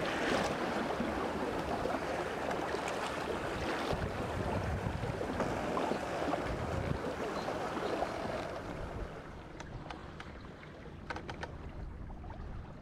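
Lagoon water washing and splashing, with wind buffeting the microphone. About nine seconds in it drops quieter, and a few small ticks or splashes come through.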